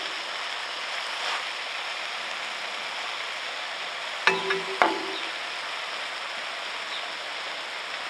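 Sausage patties sizzling steadily in a skillet, with two sharp clicks a little past halfway.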